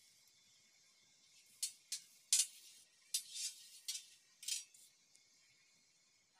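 Metal spatula scraping and knocking against a stainless-steel griddle as it is slid under a burger and lifted. About six sharp, clinking scrapes come between about one and a half and four and a half seconds in.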